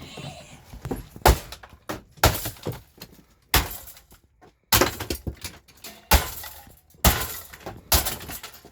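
Heavy blows striking and breaking apart RV interior fittings, about one a second, each with a short crack and rattle of loosened material.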